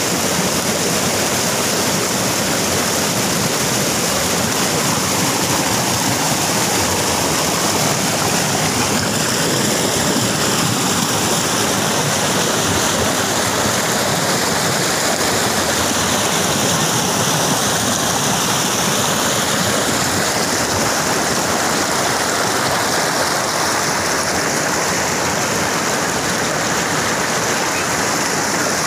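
White water of a rocky waterfall cascade rushing and tumbling over boulders, a steady loud rush.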